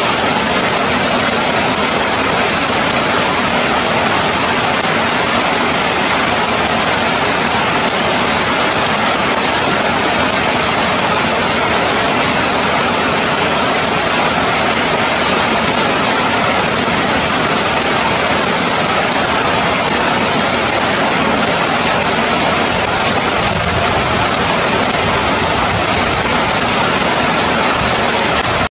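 Heavy rain falling steadily on dense forest foliage, an unbroken wash of water on leaves.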